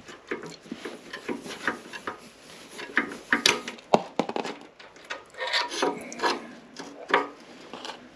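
Hand tools and metal motorcycle parts clicking, tapping and scraping in irregular knocks and rubs, with the sharpest knocks about halfway through and again near the end. This is the work of loosening the rear brake pedal bolt to free the stock footpeg's pivot pin.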